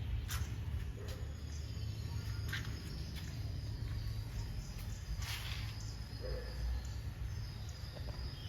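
Outdoor background with a steady low rumble, faint high chirping and a few short rustling clicks.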